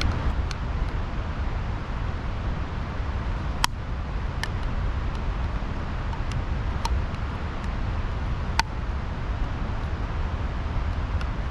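Steady rushing noise of a creek, with four sharp clicks spread through it.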